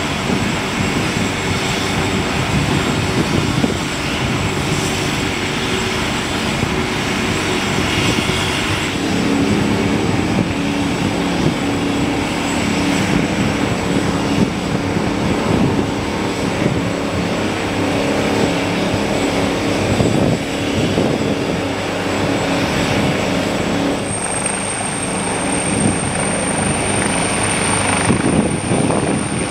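Leonardo AW139 helicopter running on the ground, its twin turboshaft engines and spinning main rotor giving a steady high whine over a fast rotor beat.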